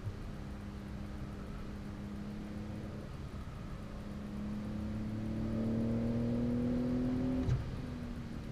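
Porsche 911 (992) flat-six engine heard from inside the cabin, pulling under acceleration with its note rising steadily and getting louder. Near the end there is a click and the pitch drops suddenly, as at an upshift.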